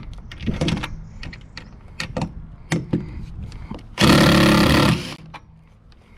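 Scattered clicks and knocks of tool handling, then a DeWalt cordless impact driver hammering loudly for about a second about four seconds in, over-tightening a screw on purpose to snap its head off.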